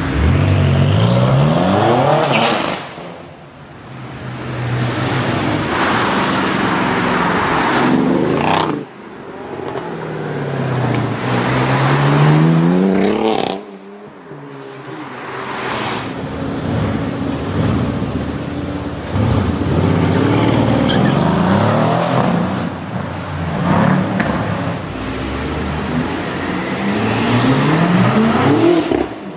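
Performance car engines accelerating hard past the microphone one after another, each one's pitch climbing as it revs, with abrupt cuts between separate passes.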